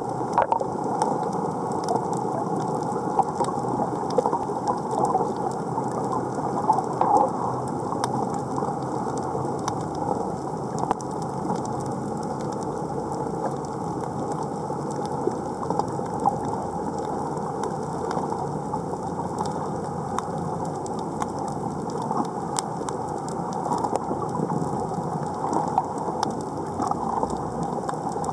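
Underwater reef noise: a steady crackling made of many fine clicks, with scattered sharper clicks throughout.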